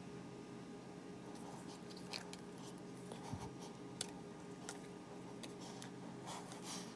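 Pokémon trading cards being handled and laid down on a plastic mat: scattered light clicks and brief rustles of card stock, sharpest about four seconds in and clustered near the end, over a faint steady hum.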